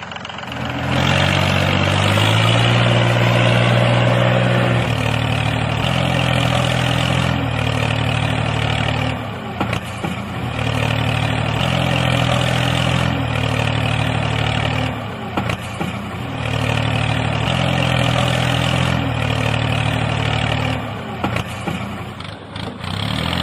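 Tractor engine sound, a diesel-type engine running with its pitch stepping up and down, the pattern dipping and starting over about every five seconds.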